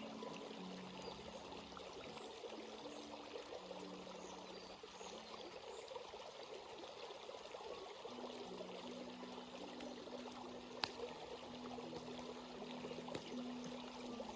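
Stream water flowing and trickling over rocks in a steady babble. Faint low held tones shift in pitch underneath, and a single sharp click sounds about three-quarters of the way through.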